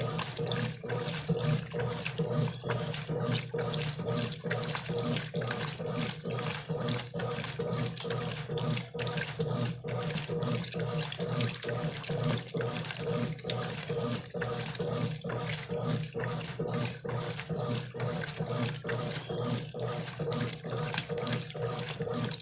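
Brastemp Clean 5 kg washing machine at work: water rushing and splashing in the tub over a steady hum.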